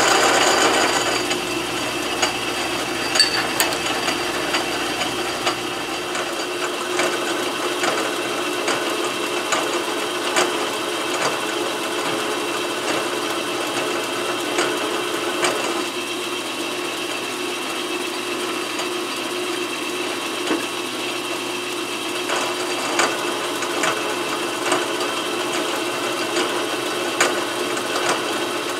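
Metal lathe running with a steady gear whine and scattered light clicks, as a twist drill and then a reamer cut into the bore of a pulley spinning in the chuck. The cutting is loudest in the first second.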